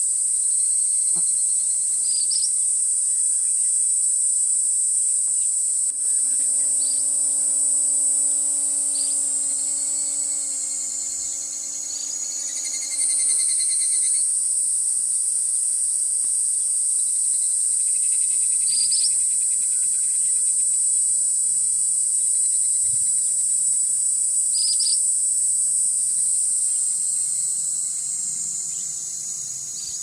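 Insects give a loud, steady, high-pitched drone that sinks in pitch and breaks off about halfway through and again near the end, then starts again. Over it an ashy minivet gives short, high 'piriri' calls about seven times. A low steady hum with several stacked tones runs for about seven seconds in the middle.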